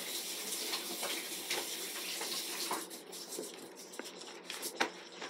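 Tap running into a sink as someone washes their hands, a steady hiss of water that eases after about three seconds, with a few light knocks near the end.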